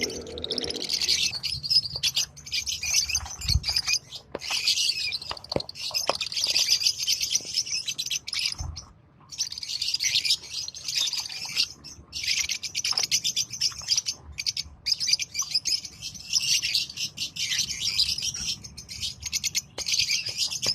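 A flock of lovebirds chattering and chirping continuously, with many shrill, overlapping calls. The chatter breaks off in a few short pauses.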